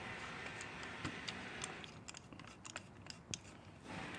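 Scattered light clicks and taps of metal parts and bolts being handled as an engine case protector is set against the engine cover and its screws are started by hand.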